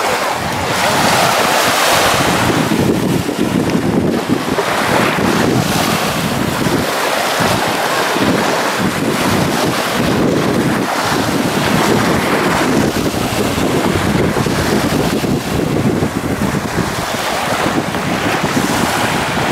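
Wind buffeting the camera microphone over small waves washing onto a sandy beach: a continuous rushing noise that swells and eases every second or two.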